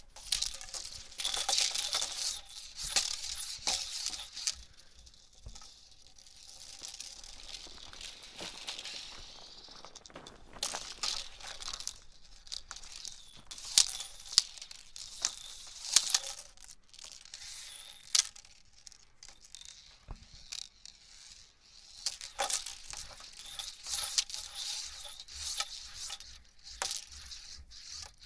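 Hula hoop being swung round the body, with irregular swishes and many sharp clicks and rattles that come in uneven bursts.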